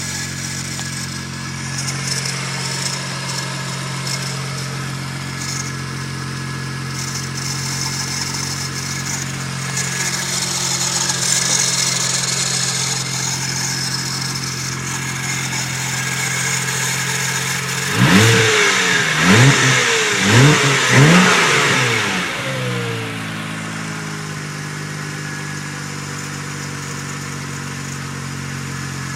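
Toyota 1JZ straight-six engine idling steadily, revved up and back down four times in quick succession about two-thirds of the way through, then settling back to idle. It carries an odd noise that the owner suspects comes from the timing belt tensioner or the power steering pump.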